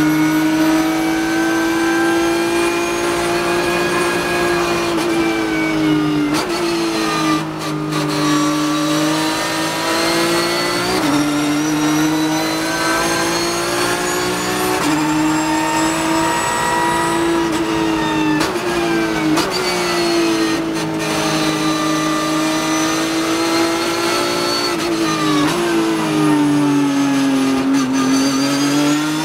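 Porsche 991.2 GT3 Cup race car's flat-six engine heard from inside the cockpit under hard running. Its pitch climbs and sags with speed, with short breaks at several gear changes, including a run of downshifts near the end.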